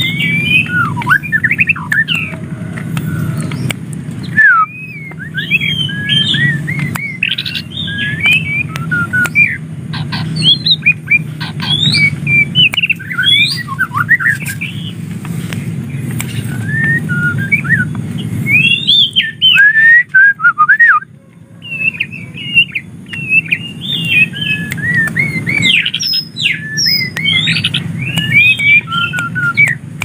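White-rumped shama singing a long, varied song of quick whistled phrases that glide up and down, with short breaks about four seconds in and around twenty seconds in. A steady low rumble sits underneath.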